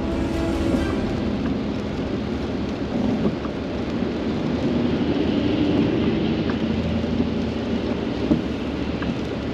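Steady road and tyre noise inside a car driving at highway speed on wet pavement, with a few raindrop ticks on the windshield.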